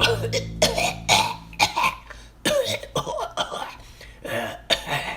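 A person coughing in a harsh fit of about eight coughs, with some throat clearing.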